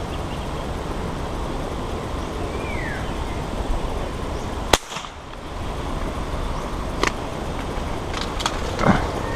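An air rifle fires once, a sharp crack a little under five seconds in, shooting a dart at a fish. A few small clicks and a short scrape of handling follow near the end, over a steady low background noise.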